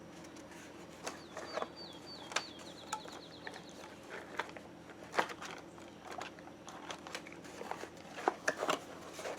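Light clicks and rustles of small items and a cardboard box being handled and packed, with a bird chirping a short run of repeated notes ending in a quick trill about a second in.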